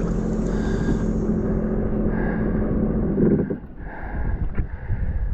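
Jet ski engine running at a steady speed, with wind on the microphone; about three and a half seconds in the engine note drops away, leaving only wind noise.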